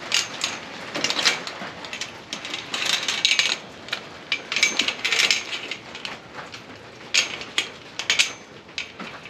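Irregular clicking and rattling in short clusters, several times over, from something being handled or knocked about.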